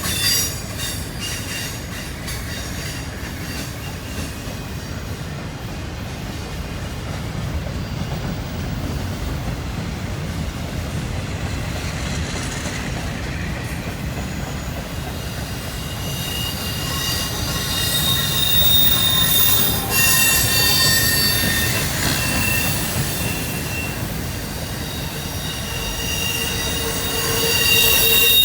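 A freight train's cars rolling past with a steady low rumble. From about halfway in, high-pitched steel wheel squeal rises and comes and goes, growing louder near the end.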